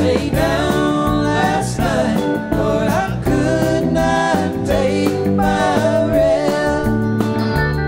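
Live rock band playing: several male voices sing together in harmony over electric guitars, bass, keyboards and drums.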